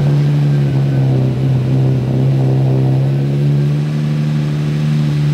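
Lamborghini Murciélago's V12 engine idling steadily, just after being started.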